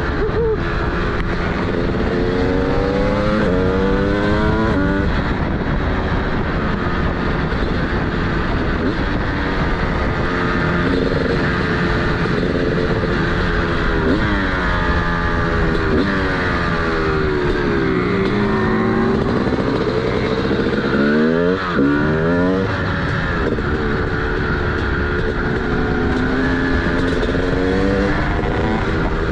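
TM SMR 300 single-cylinder two-stroke supermoto engine with a DBR exhaust, riding through curves. The revs climb in pitch and drop at each upshift; in the middle the pitch falls away while slowing, dropping sharply just past two-thirds of the way through, then picks up again as it accelerates.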